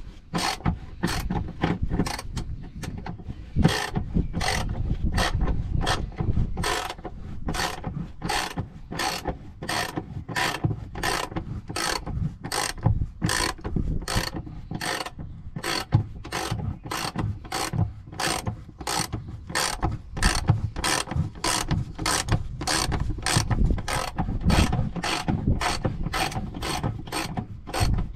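Hand socket ratchet clicking steadily on its back-swings, about two strokes a second, as a transmission bolt is wound out.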